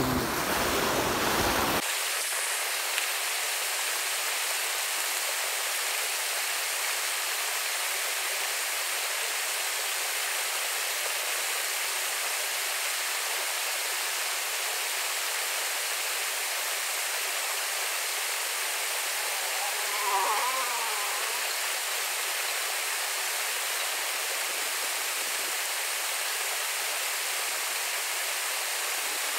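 Shallow stream rushing over rocks: a steady, even wash of water. For about the first two seconds it is louder and overlaid by a low rumble of wind on the microphone. A brief wavering call is heard about two-thirds of the way through.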